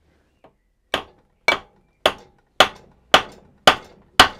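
Hammer blows on a Reliant engine's aluminium cylinder head, which is seized to its steel studs: a light tap, then seven sharp strikes about two a second, growing slightly louder, to break the corroded seal.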